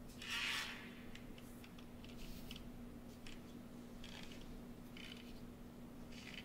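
Feet stepping onto and shifting on a wooden board: a soft scrape about half a second in, then faint scattered scrapes and ticks, over a steady low hum.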